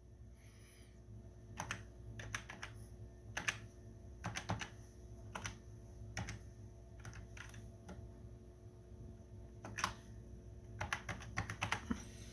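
Keystrokes on a Macintosh SE keyboard typing modem commands: separate, unevenly spaced key clicks, slow and hunt-and-peck, with small clusters near the middle and the end.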